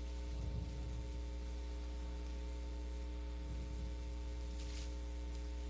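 Steady electrical mains hum from the microphone and sound system, with a faint short rustle near the end.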